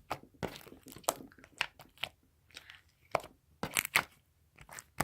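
Slime being stretched and squeezed by hand, giving off irregular clicking and crackling pops: the clicky, sort of crunchy sound of a freshly activated slime.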